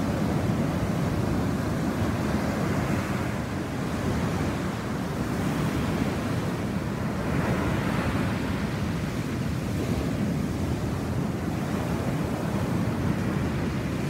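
Ocean surf breaking and whitewater washing up the beach: a continuous low rumble of waves, with louder swells of hiss about two seconds in and again around eight seconds as waves break.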